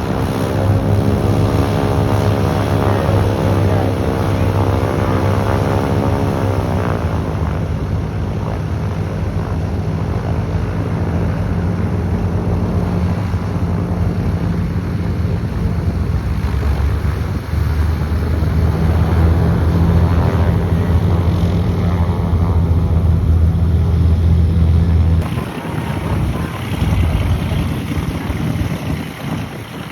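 Piston-engined propeller aircraft running loud: an engine note that falls in pitch over the first several seconds as it passes, then a heavy low drone that swells and cuts off sharply about 25 seconds in.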